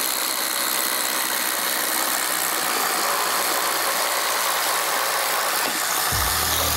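Two DeWalt 20V cordless impact drivers running at once under heavy load, boring 1-inch self-feeding spade bits through stacked 2x4 lumber: a loud, steady mechanical rattle. A low rumble joins about six seconds in.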